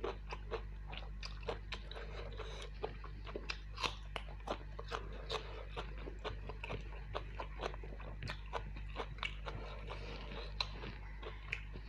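Close-miked chewing and mouth smacking as a person eats rice with mutton curry: many short clicks, several a second, over a low steady hum.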